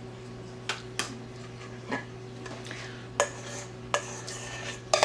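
Metal spoon scraping and clinking against a stainless steel mixing bowl while gathering up leftover egg-yolk filling: about six sharp clinks spread out, with scraping between them, over a steady low hum.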